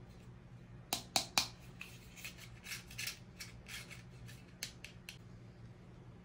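Plastic toy pieces and packaging being handled during unboxing: a run of sharp clicks and snips, the three loudest close together about a second in, then lighter clicks until about five seconds in, over a faint low hum.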